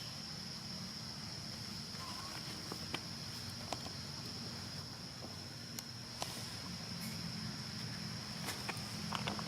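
A steady high-pitched drone of insects over a low background hum, with a few faint, scattered clicks and taps.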